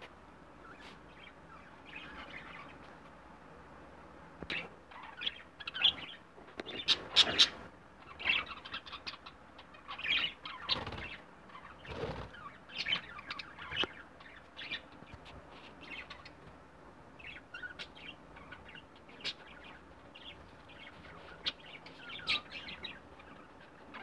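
A flock of budgerigars chirping and chattering in short, irregular calls, busiest in the middle, with now and then a flutter of wings as a bird flies.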